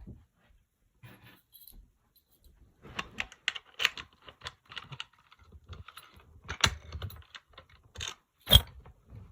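A fire alarm pull station key on its ring jangling and clicking as it is handled, after about three seconds of near quiet. Scattered sharp metallic clicks, the loudest about two-thirds in and again shortly before the end.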